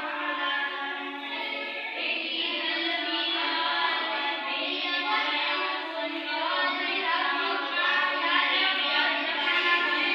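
Background music: a song with singing that runs without a break.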